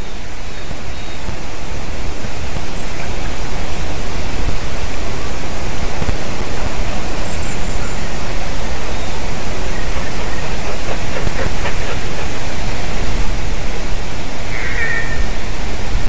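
Steady, loud rushing noise on an outdoor nest-camera microphone, swelling over the first few seconds. A short bird call comes near the end.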